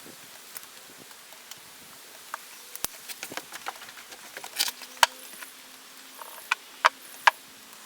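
Irregular light clicks and knocks, with a few sharp, louder knocks in the second half.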